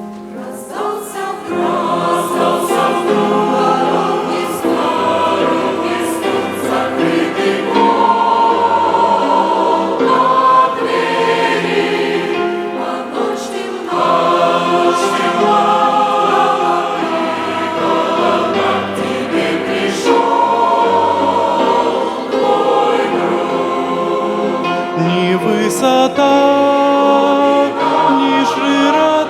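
Church choir singing a Christian song, many voices holding and changing notes together.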